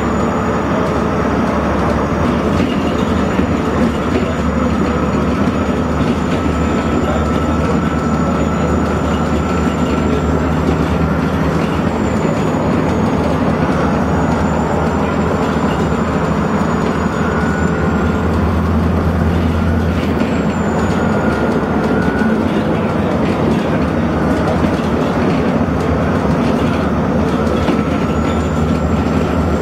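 On board an ADL Enviro400 double-decker bus being driven hard: the diesel engine drones steadily under a wash of road noise. The low drone swells for a couple of seconds about two-thirds of the way through.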